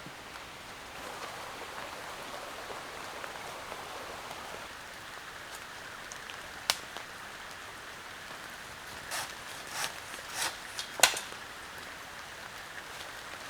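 Steady rain falling, with a sharp click about seven seconds in and a louder one near eleven seconds, among a few short scraping or rustling sounds.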